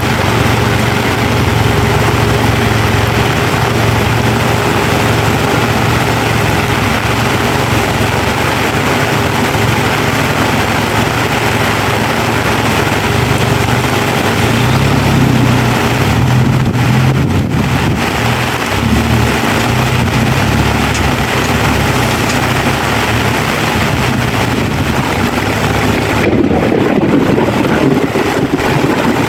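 Suzuki 4x4's engine running steadily as it drives a muddy trail, heard from inside the cabin over a dense hiss of rain and tyre noise. From about 26 seconds in it grows fuller and louder in its lower range.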